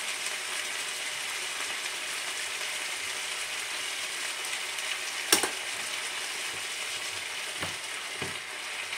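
Broccoli, carrots and onion sizzling steadily in a frying pan as they are stirred with a wooden spoon, with one sharp knock about five seconds in and a couple of faint knocks near the end.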